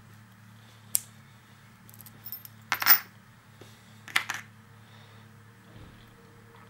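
Light metallic clinks and rattles of small homemade lock-picking tools and a brass padlock being handled: a sharp click about a second in, the loudest cluster of clinks around three seconds in, and more just after four seconds, over a faint steady low hum.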